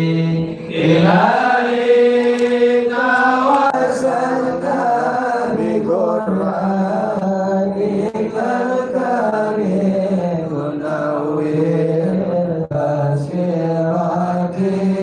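A single male voice chanting an Islamic devotional chant, holding long drawn-out melodic notes that bend slowly in pitch.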